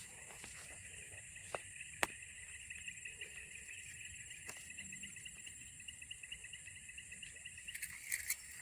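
Insects chirring in a steady, fast-pulsing chorus over a higher continuous buzz, broken by a few sharp clicks, the loudest about two seconds in and a quick run of them near the end.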